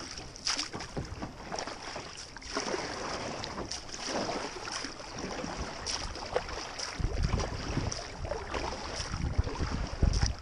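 Kayak paddle strokes splashing and dripping in river water, with water washing along the hull. From about two-thirds of the way in, wind buffets the microphone in low rumbles.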